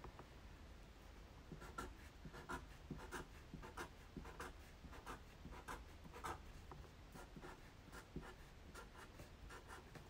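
Black felt-tip marker scratching on paper in a run of short, quick strokes, about two or three a second, starting about two seconds in, as a row of zigzag teeth is drawn. The strokes are faint.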